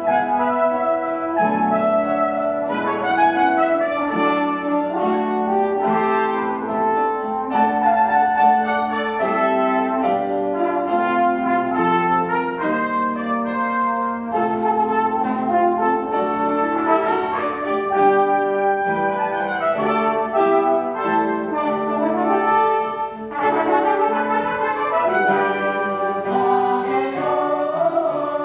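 Live choral music: a mixed choir singing held notes with piano accompaniment, joined by a wind instrument that sounds brass-like.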